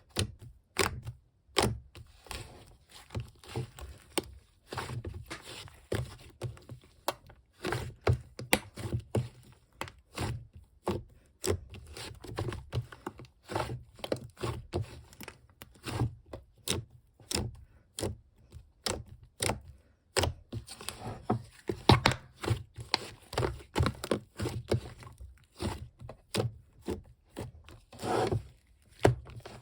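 Slime being squeezed, stretched and pressed by hand, giving a quick irregular string of sticky pops, crackles and tearing sounds.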